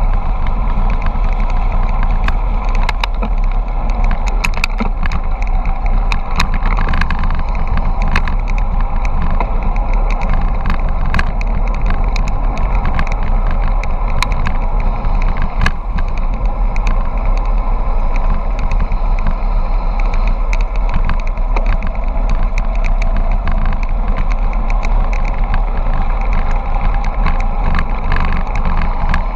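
Wind rushing and buffeting over the camera microphone and tyres rolling on asphalt during a fast bicycle descent, a steady loud rumble with scattered sharp clicks and knocks from road bumps and the bike.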